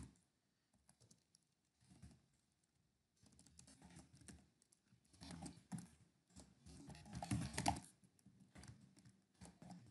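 Faint computer keyboard typing, in short bursts of keystrokes that start about three seconds in.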